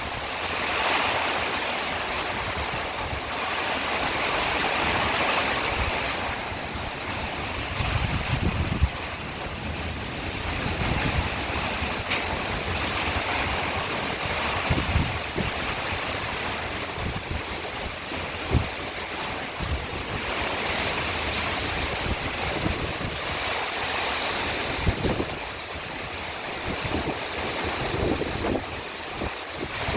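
Heavy rain pouring down in a storm, a dense steady hiss that swells and eases, with gusts of wind thumping on the microphone.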